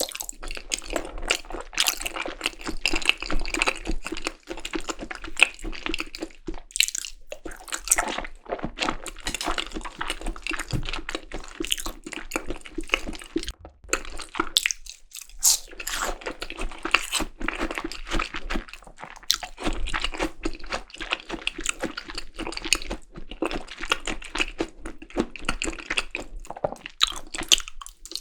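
Close-miked chewing of yukhoe, Korean seasoned raw beef tartare: continuous wet, sticky mouth sounds with crunching. There are two brief pauses, about seven seconds and fifteen seconds in.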